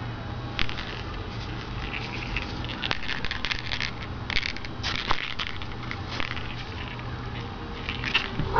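Rustling and crackling handling noise with scattered light clicks, over a steady low hum.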